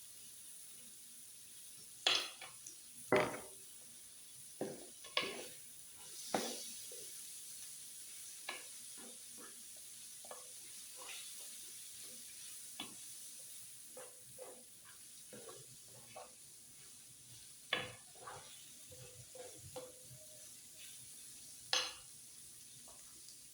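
Utensils stirring and scraping pasta on a hot griddle over a faint steady sizzle, with a scatter of sharp metal knocks; the loudest come about two, three, five and six seconds in, and again near the end.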